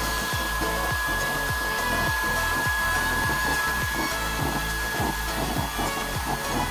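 Small electric blower fan forcing air into a homemade waste-oil stove burning with a blue flame: a steady fan whine over the rush of the burner, with a fluttering low rumble.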